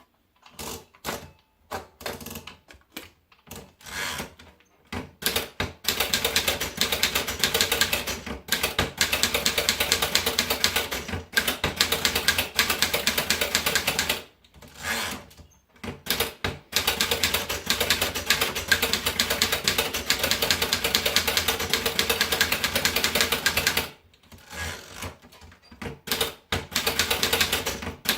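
Remington Sperry Rand Streamliner manual portable typewriter being typed on: a few scattered key strikes at first, then long runs of fast, rapid keystrokes broken by two short pauses.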